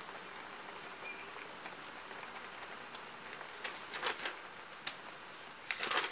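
Steady hiss of rain falling during a thunderstorm, with a few sharp ticks and clicks about four and six seconds in.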